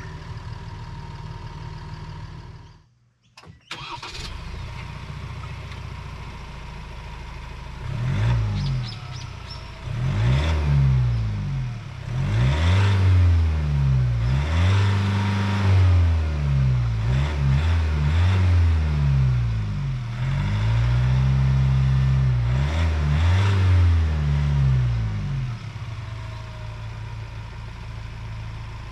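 Ford Everest 2.0-litre twin-turbo four-cylinder diesel heard from behind at the exhaust: it idles, then is revved in a series of blips, each climbing and falling in pitch, before dropping back to a steady idle near the end. A different engine, the 3.0-litre V6 diesel, idles for the first few seconds before a brief break.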